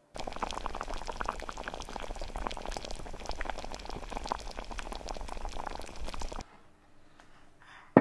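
Thick curry simmering in a pot, bubbling and popping densely and unevenly; it cuts off sharply about six seconds in.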